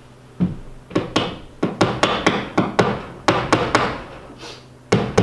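A hammer tapping a nail into the wall in quick repeated blows, pausing briefly near the end and then starting again. This is a test nail being driven to see whether there is solid framing behind the wall.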